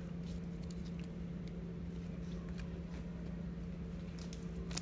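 Faint rustles and small clicks of trading cards being handled in gloved hands, over a steady low hum, with one sharper click near the end.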